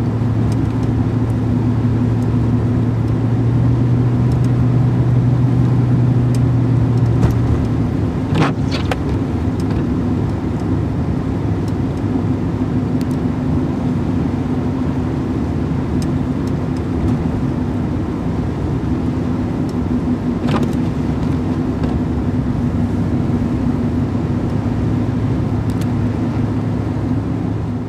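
A road vehicle running steadily while being driven, heard from inside: a constant engine hum over road noise. Its deeper drone eases about eight seconds in and comes back near the end. Two short clicks stand out, about a third of the way in and again about two-thirds through.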